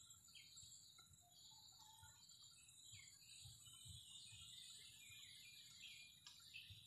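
Near silence: room tone with faint, irregular chirping of birds in the background.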